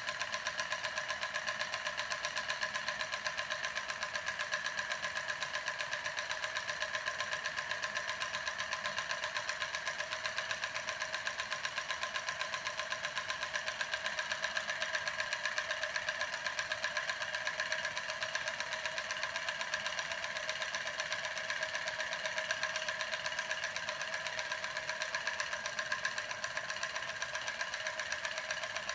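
Homemade steam engine with a syringe piston and CD flywheel running steadily, making a fast, even clatter with a steady tone running through it.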